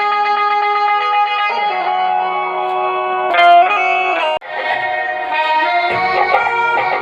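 Instrumental music played loud through a 150-watt Mekasonic loudspeaker on a sound test. It breaks off for an instant about four and a half seconds in, then goes on with a busier passage carrying deep bass notes.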